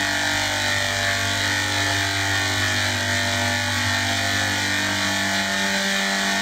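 Steady mechanical whirring hum from a running machine, holding one unchanging pitch with a constant hiss over it.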